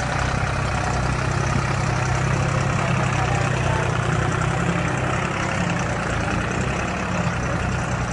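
Deutz-Fahr tractor's diesel engine running steadily under load, pulling a subsoiler through the soil.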